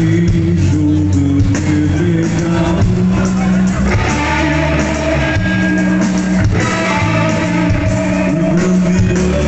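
Rock band playing live, with electric guitar to the fore over bass and a steady drum beat.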